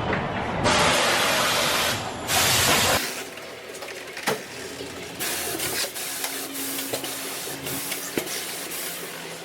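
Compressed air hissing in two loud bursts, the first about a second and a half long and the second under a second, followed by scattered clinks and knocks of tools on metal.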